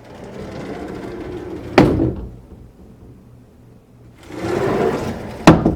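A door worked twice, each time a rumbling, scraping slide that ends in a sharp bang, in imitation of a sliding-wall sound effect.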